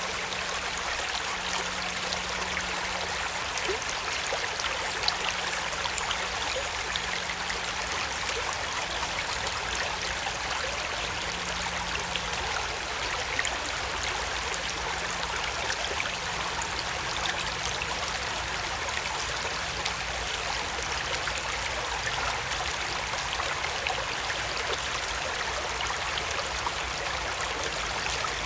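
Gentle creek flowing over stones, a steady babbling and trickling of water with small splashes.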